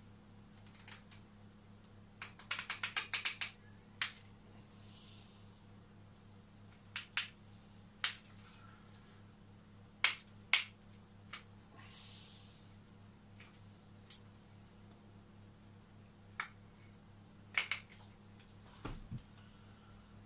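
Sharp clicks and snaps of a small hand cutter biting into the hard wood at the base of a wild olive cutting: a quick run of about eight snips around two seconds in, then single snaps every second or few. A duller knock near the end.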